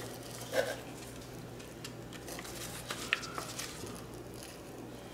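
Faint rustling and crinkling of a thin paper instruction booklet as it is bent and its pages are leafed through, with a few small ticks and a sharper one about three seconds in.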